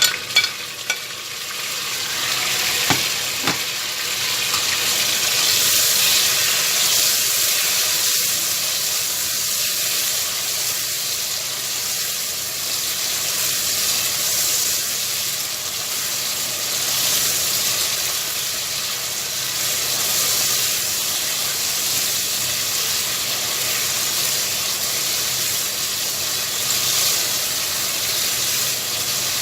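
Onions, tomatoes and green chilies sizzling in hot oil in a pot, stirred now and then. A few sharp clicks and knocks come in the first few seconds, and the sizzle grows over the first six seconds, then holds steady.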